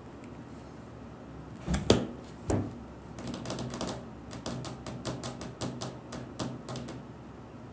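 Two sharp knocks close to the microphone, then a run of quick light clicks and taps, about three or four a second, like typing.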